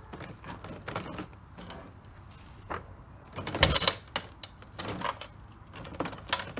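Irregular clicks and knocks from handling, with a louder clattering rustle about three and a half seconds in.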